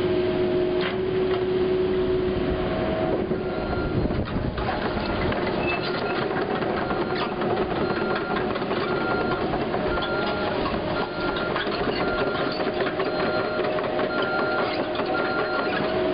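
Caterpillar 308E2 CR mini excavator travelling on its steel tracks: the diesel engine runs with a steady whine and the tracks clatter. From about four seconds in, a travel alarm beeps about twice a second.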